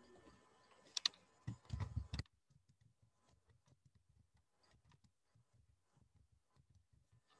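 Sharp clicks about a second in, then a short run of dull knocks, picked up by a video-call participant's microphone. About two seconds in the background hiss cuts out, leaving only faint quick taps.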